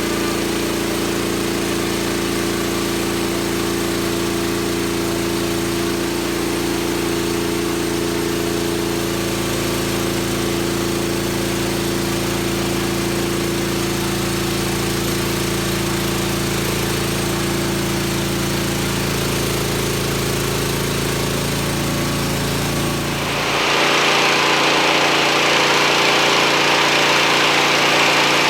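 Wood-Mizer LT40 portable bandsaw mill running steadily while milling a black walnut log. About 23 seconds in the sound changes abruptly: the low engine hum drops away and a louder, higher-pitched noise takes over.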